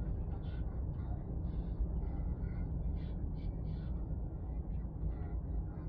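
Steady low rumble of road and engine noise inside a moving car's cabin, with faint, short, higher-pitched sounds coming and going over it.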